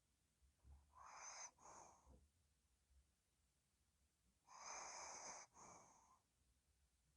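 Sleeping Pomeranian snoring softly: two faint, breathy snores about three and a half seconds apart, each broken in two by a short pause.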